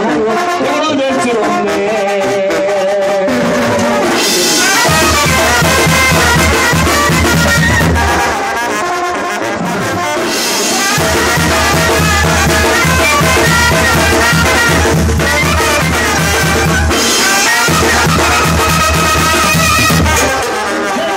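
Live tamborazo band playing an instrumental passage: clarinet and trombone carry the tune over sousaphone bass, drums and cymbals. The low bass-and-drum beat comes in strongly about four seconds in and drops out twice for a moment.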